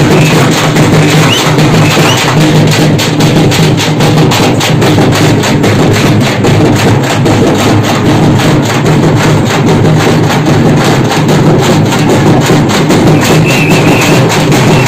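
A group of drummers beating shoulder-slung double-headed drums with sticks in a dense, continuous rhythm, many drums struck together without a break.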